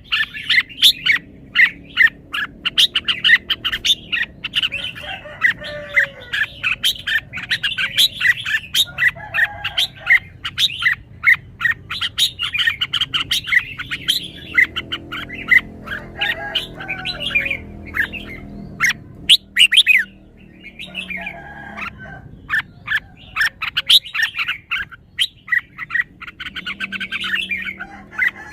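Red-whiskered bulbul singing: quick runs of short, bright chirping notes, with a brief lull a little past the middle.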